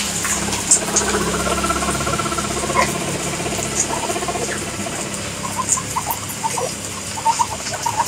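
A crowd of guinea pigs calling: one long, rapidly pulsing, buzzy call lasting about four seconds, then short squeaks near the end.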